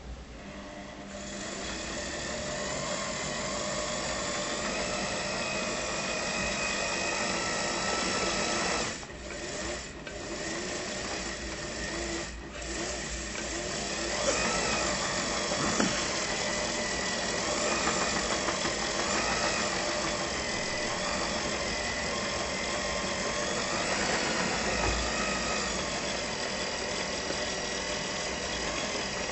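A small electric motor running steadily, its pitch wavering in the second half, with a few brief drops in level about a third of the way in.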